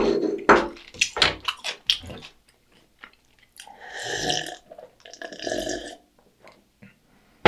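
Close-up mouth sounds: chewing and clicking for the first two seconds, then two long gulps of beer drunk from a glass mug.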